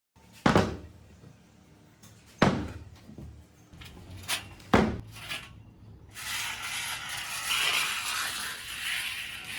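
Three sharp knocks about two seconds apart, with a couple of lighter clicks between them, then a steady hiss starting about six seconds in and lasting over three seconds.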